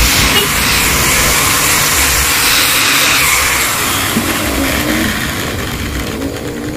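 Power grinder grinding against the steel body of a motorcycle exhaust muffler that is being hollowed out: a loud, steady, hissing grind that eases off slightly toward the end.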